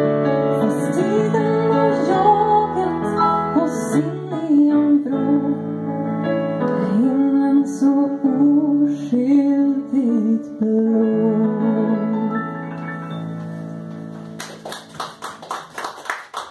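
A woman singing a slow Swedish ballad with electric piano accompaniment, the last phrase and final chord fading out. Near the end, hand-clapping breaks out.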